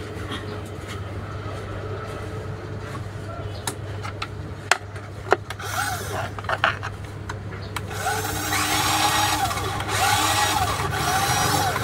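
Small brushed electric motor and plastic gearbox of an RC off-road car spinning its wheels in the air, with a few sharp clicks early on. From about 8 s it runs louder, its whine rising and falling as the throttle is worked. The front drive motor is running again after its brushes were replaced.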